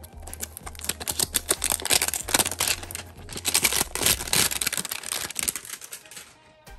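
Plastic shrink wrap being peeled and torn off a trading-card hanger box, a dense crinkling crackle that dies away about six seconds in.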